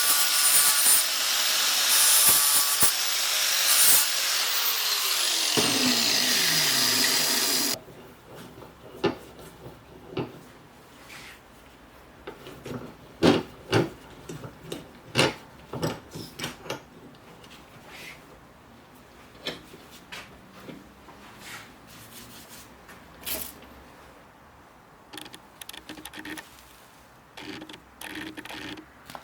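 An electric power tool runs loudly, then is switched off and spins down with a falling whine over a couple of seconds. After that comes a much quieter stretch of scattered taps, knocks and light scrapes from handling tools and metal.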